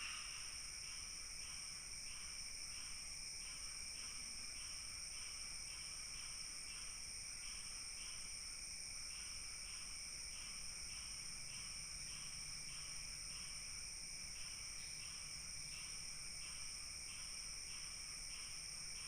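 Night insects: a steady high-pitched trilling, with a cricket chirping evenly a little over twice a second.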